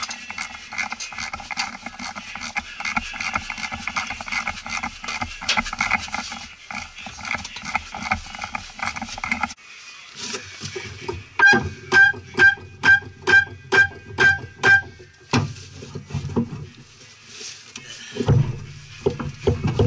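Background music with a steady rhythm. A run of evenly spaced pitched notes, about two a second, comes just past the middle.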